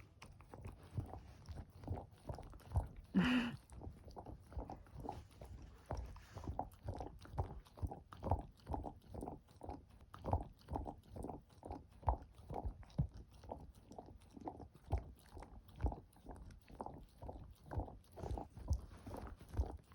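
A dog licking and chewing at a treat-filled chew toy, a steady run of short mouthing strokes about two to three a second.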